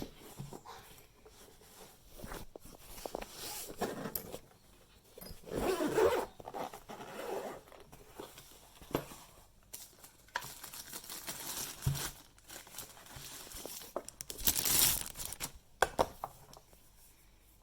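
Rustling, scraping and a few light knocks of things being handled, with a zip pulled near the end, most likely the zip of the massage gun's hard carry case.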